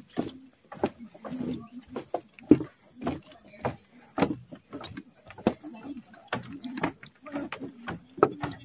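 Footsteps of several people walking on a wooden plank boardwalk, irregular hollow knocks one or two a second, over a steady high-pitched drone of insects.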